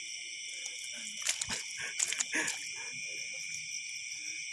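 Steady high chorus of night insects, with a cluster of rustles and soft knocks about one to two and a half seconds in from handling a landed fish among water hyacinth.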